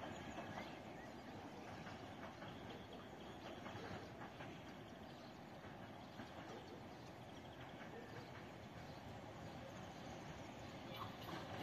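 Faint, steady running noise of a distant ČSD class E 499.0 "Bobina" electric locomotive approaching along the tracks, with a few light clicks.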